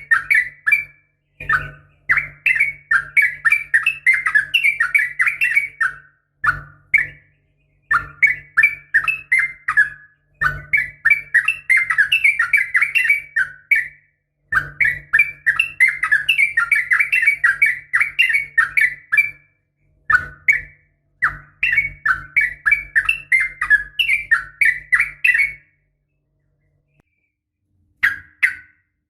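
Sooty-headed bulbul (trucukan) giving its chattering call: quick runs of bubbly chirps lasting a few seconds each, broken by short pauses, with a longer pause near the end. It is a female's call to a male, of the kind used as a lure to set caged males singing.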